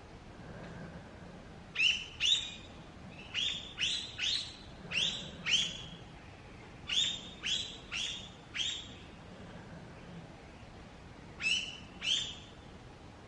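A bird calling in the forest: about a dozen short, sharp calls, each dropping in pitch, given in groups of two to four with pauses between.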